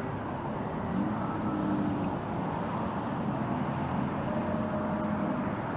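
Steady outdoor background noise with the faint hum of distant motors, a few held tones coming and going.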